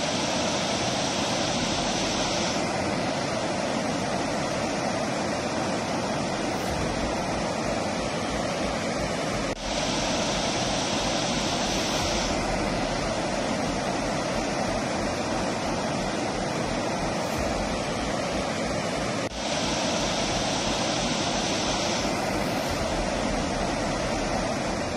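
A steady rushing noise, with the sound of flowing water. It runs as a loop of about ten seconds that restarts twice, with a brief dip each time.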